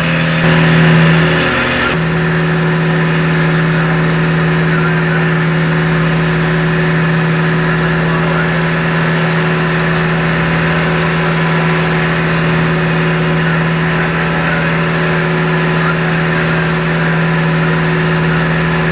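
Fishing boat's engine running at a steady speed, heard from on board: a loud, even drone with a steady hiss over it. The sound shifts briefly about two seconds in, then carries on unchanged.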